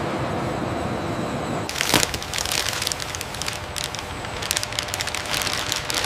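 A steady low machine rumble, then from about two seconds in, protective sheeting crinkling and crackling as it is pulled off a jet cabin.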